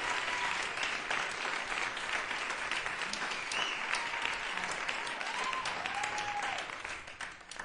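Audience applause and cheering from a live music recording: a dense patter of clapping with a few short whoops. It fades out over the last second.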